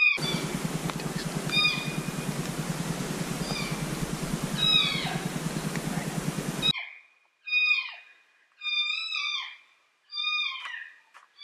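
Repeated cat-like meowing calls, each falling in pitch, about one every second and a half, played through a FOXPRO electronic predator game call to call in a mountain lion. For the first two-thirds the calls are half-buried under a heavy steady rushing noise with a low hum, which cuts off suddenly.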